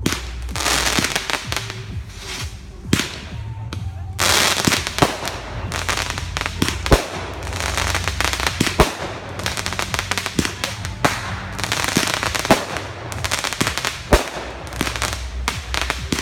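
Consumer fireworks going off in quick succession: many sharp bangs over dense crackling, which gets thicker and busier about four seconds in.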